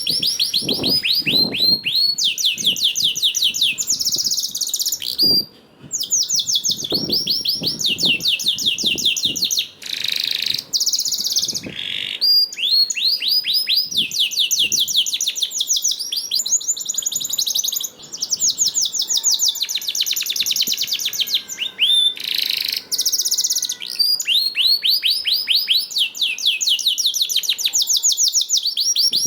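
Domestic canary singing a long, nearly unbroken song of fast trills, each trill a rapid run of repeated downward-sliding notes, with a few brief pauses.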